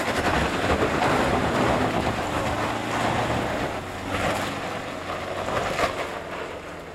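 Three-door Toyota Land Cruiser's engine working hard up a steep loose-dirt slope, with its tyres scrabbling and throwing dirt and gravel. It grows fainter toward the end as the vehicle pulls away uphill.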